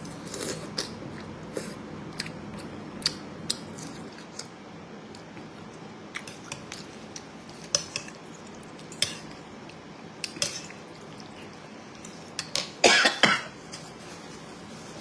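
Someone eating with spoons: chewing and mouth sounds, with frequent small clicks of the spoon against the bowl. About thirteen seconds in comes a brief, much louder burst of several sharp sounds.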